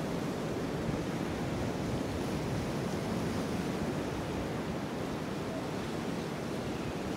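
Steady ocean surf washing against a rock shelf, with wind buffeting the microphone.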